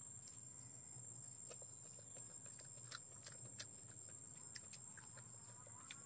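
Quiet eating sounds: scattered soft clicks of chewing and of fingers working rice and fish, over a steady faint high-pitched whine.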